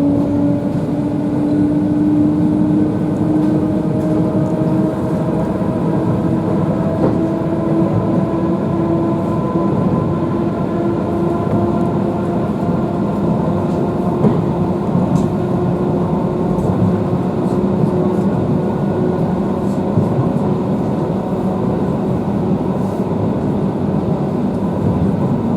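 Electric commuter train running, heard from inside the carriage: a steady rumble of wheels on track, with a motor whine that rises slowly in pitch as the train gathers speed.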